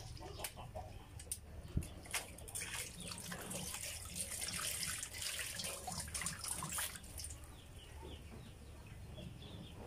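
Water splashing and sloshing in a stainless-steel basin as hands squeeze and rinse salted duck innards, with drips and small splashes. It is busiest in the middle and dies down after about seven seconds.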